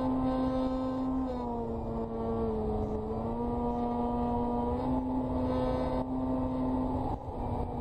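Electric brushless motor (E-flite Power 60) and propeller of an RC Westland Lysander heard from on board, a steady whine that drops in pitch about a second in as the throttle is eased back and then holds at part throttle, with small shifts later. Wind rushes over the onboard camera underneath.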